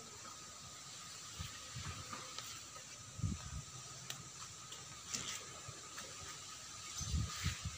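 Faint outdoor garden ambience: a steady hiss with a thin, steady high tone, broken by a few short low bumps on the microphone about three seconds in and again near the end.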